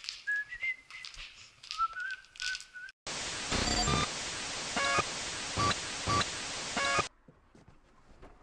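A person whistling a short stepped tune, cut off about three seconds in by loud television static hiss, a glitch transition effect, with several short electronic beeps through it. The static stops abruptly about four seconds later, leaving faint background hiss.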